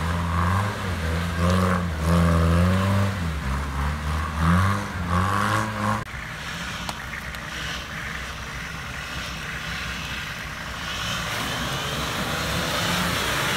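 An off-road 4x4's engine revving up and down as it drives through mud. About six seconds in the sound changes abruptly to a Nissan Patrol wading a muddy puddle, with water splashing that grows louder near the end.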